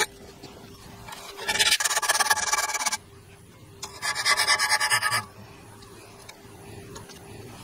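Hacksaw cutting through a thin metal tube held in a vise: two bursts of rapid back-and-forth sawing, each about a second and a half long, with a short pause between them.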